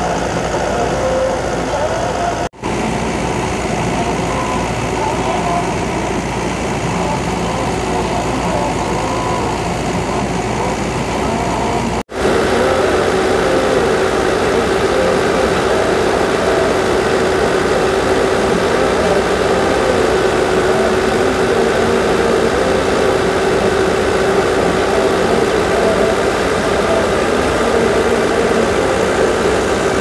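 Fiat tractor's diesel engine running steadily under load, driving a wheat thresher as wheat is fed into its drum. The sound breaks off for an instant twice, and after the second break a steady hum sits over the machinery noise.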